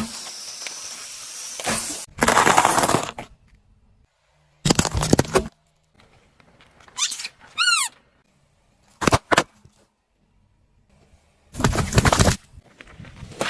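A series of short, separate crunching and cracking bursts as objects are crushed under a car's tyre, each cut off abruptly. Near the middle there is a quick run of high falling squeaks, and a pair of sharp cracks follows a little later.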